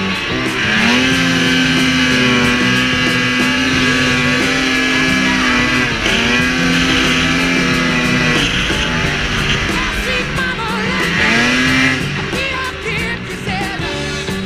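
Ski-Doo snowmobile's Rotax 800 E-TEC two-stroke engine revving up and holding high revs under throttle, three long pulls about a second in, near six seconds and near eleven seconds, easing off between them. Blues-rock music plays over it and is plainer near the end.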